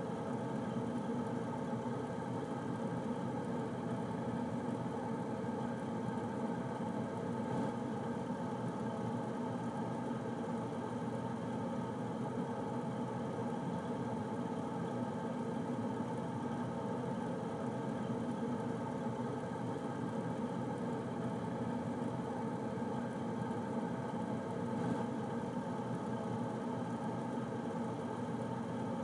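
Air conditioner running steadily: a constant mechanical hum with several steady tones and an even rush of air.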